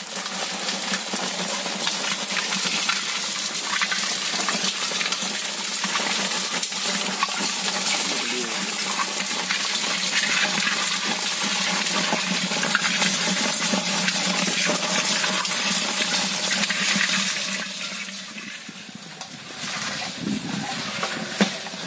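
Dozens of live crabs scrabbling and clattering against the metal of a pot as they are tipped out of a wet sack: a dense, steady mass of tiny clicks and scrapes with water running off. It eases for a moment near the end.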